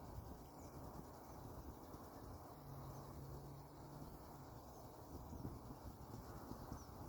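Faint outdoor ambience: a low rumbling background with a few faint, short, high chirps, and a brief steady low hum a little under halfway through.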